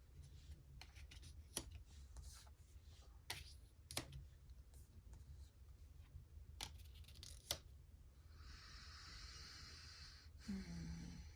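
Tarot cards being handled, faint: scattered light taps and clicks, then about two seconds of rustling shuffle near the end, followed by a brief low hum of a voice.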